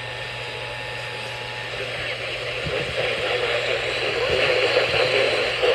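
Steady static hiss and low hum from a weather radio receiver. About halfway through, a voice broadcast starts to come through the static and grows louder.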